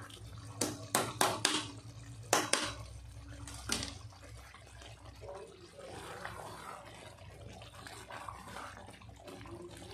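Thick curry gravy simmering and bubbling in a pan. In the first few seconds there are several sharp clicks and taps of utensils against the pan.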